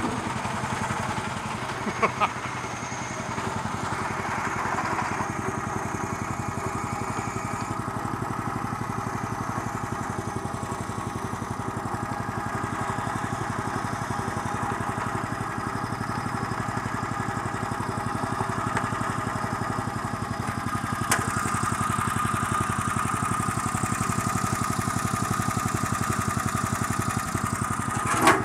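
1963 Bolens Husky 600 lawn tractor's Briggs & Stratton engine running steadily, with a few sharp clicks, one about two seconds in and another about twenty seconds in. After the later click the engine gets slightly louder.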